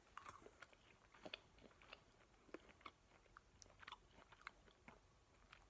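Faint chewing of a soft gummy candy (a Sour Patch Kids), heard as small, scattered mouth clicks over near silence.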